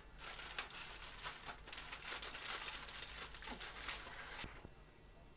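Crumpled aluminium foil crinkling and rustling as a hand handles it: a run of irregular crackles that stops a little more than four seconds in.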